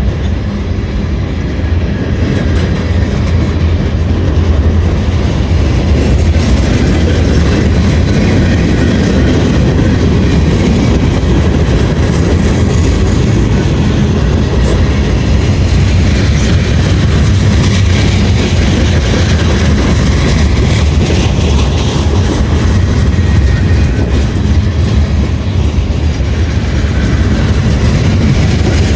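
A slow-moving CSX freight train's cars rolling past, their steel wheels clattering over the rail joints in a steady, loud rumble.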